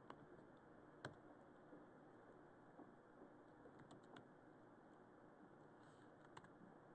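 Faint, scattered keystrokes on a computer keyboard: a few sharp clicks over quiet room tone, the loudest about a second in.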